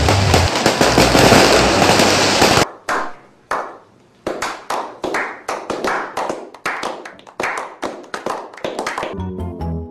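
Loud, dense noise with music low underneath, cutting off suddenly about two and a half seconds in. It is followed by a run of separate sharp cracks, about two or three a second, each with a short ring. Chiming music comes in near the end.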